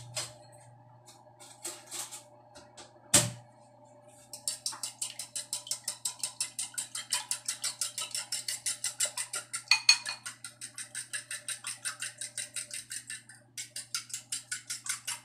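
Eggs being beaten in a bowl by hand, the utensil clicking against the bowl's side in a fast, even rhythm of about five clicks a second that starts about four seconds in. Before that come a few scattered clicks and one sharp knock.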